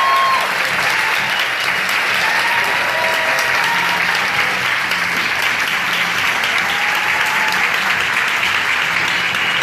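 Audience applauding steadily, with a few short pitched calls rising over the clapping.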